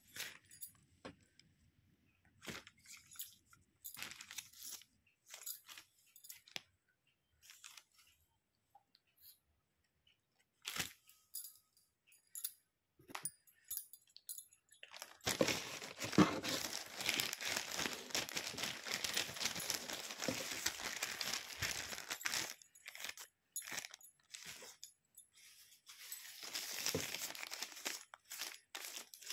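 Plastic and paper crinkling and rustling under handling: scattered short rustles at first, then a long stretch of continuous crinkling from about halfway in, and another shorter one near the end.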